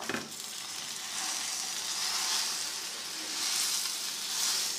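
Paratha frying in oil on a hot tawa: a steady sizzle that swells a little around the middle and again near the end.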